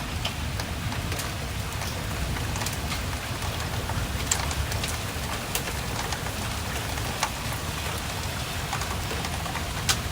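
Steady rain falling, with scattered sharp hits of occasional large hailstones as the hailstorm tapers off to mostly rain.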